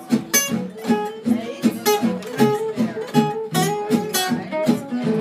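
Gypsy jazz (jazz manouche) trio of two acoustic guitars and a plucked upright double bass playing, with steady strummed chords on the beat under a moving guitar line.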